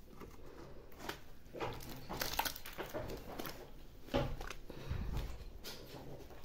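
A hand stirring and kneading soaked cattle feed in a metal pan: irregular wet squelches, scrapes and knocks against the pan, with a dull low rumble about five seconds in.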